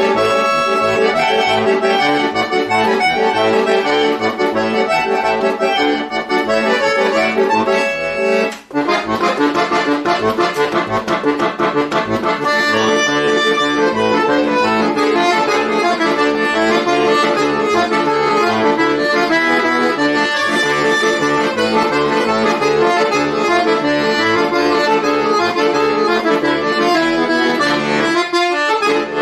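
Solo chromatic button accordion playing a continuous passage of many quick notes over sustained lower tones, with a brief break about nine seconds in and another near the end.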